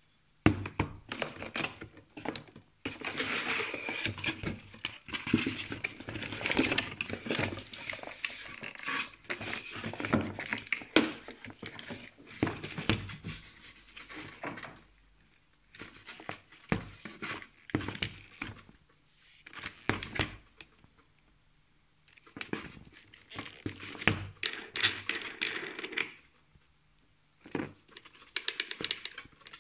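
Packaging and tool parts being handled during unboxing: rustling and crinkling of wrapping with sharp knocks and clicks as pieces are moved and set down, in irregular bursts with short pauses.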